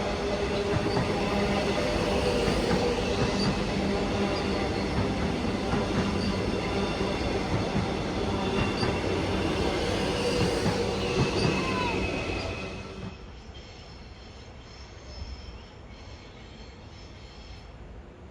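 Alstom X'Trapolis electric suburban train running along the track with squealing wheels, heard as steady high tones over the rumble. It cuts off about 13 seconds in, leaving much quieter background.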